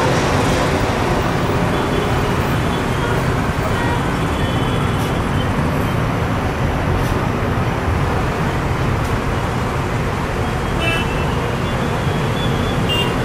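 Steady jet roar of an Airbus A320neo's CFM LEAP-1A turbofans at approach power through the flare and touchdown, mixed with road traffic noise.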